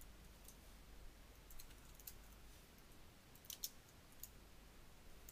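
Faint, scattered keystrokes on a computer keyboard, a few single clicks with pauses between them, as a line of code is typed.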